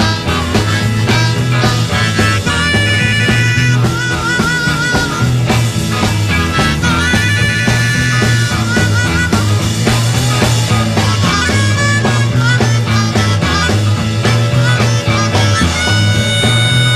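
Rock band playing an instrumental blues-rock groove, drums and bass pulsing underneath with a harmonica playing over them, holding a steady note near the end.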